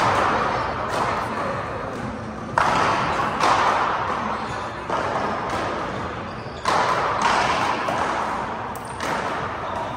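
Small rubber handball smacked by hand and rebounding off the front wall and floor during a rally, about seven sharp smacks, each echoing in the large indoor court.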